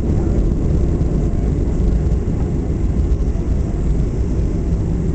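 Steady low rumble inside the cabin of a Boeing 737 taxiing on the ground, its jet engines running at low taxi power.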